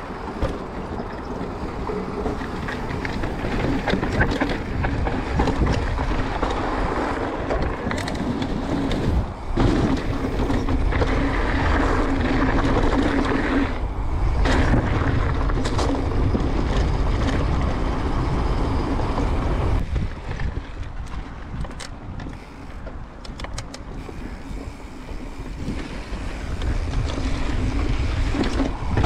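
Transition Sentinel mountain bike riding a trail: tyres rolling over the ground and wind rushing over the microphone, with scattered clicks and knocks. It eases off for a few seconds past the middle.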